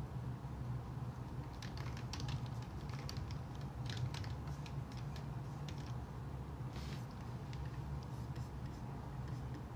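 Scattered light clicks and taps, irregular and a few at a time, over a steady low electrical hum.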